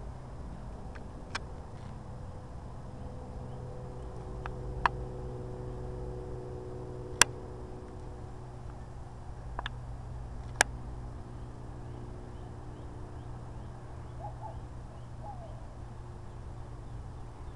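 Steady low outdoor hum with a handful of isolated sharp clicks, the loudest about a third and halfway through, and a few faint short falling chirps near the end.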